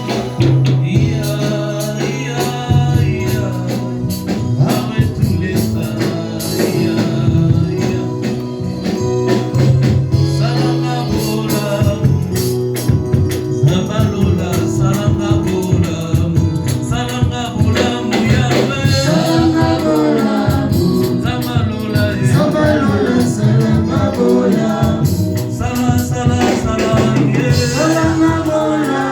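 Gospel music with singing over a sustained bass and a steady percussion beat.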